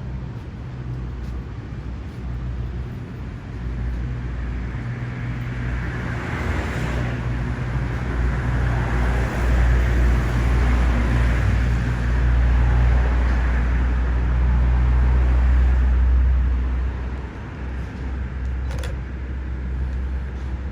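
Motor vehicle traffic, with a low engine rumble that swells louder over the middle stretch and drops back near the end; a short click comes near the end.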